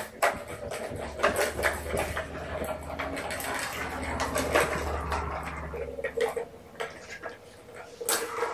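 Cat toys being handled on a carpeted floor: rustling with light plastic clicks and knocks, and a small clatter near the end as a plastic ball-track tower toy is set down.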